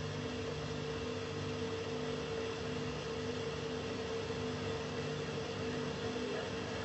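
Steady hiss with a constant low hum and no other distinct sound: the background noise of an old broadcast recording.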